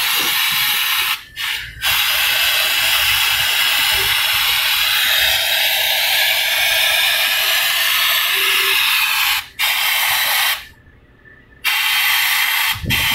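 Pressurised spray nozzle hissing steadily as cleaner is sprayed over the engine bay to wash off leaked oil. It cuts off briefly about a second in, again near 9.5 s, and for about a second near 11 s.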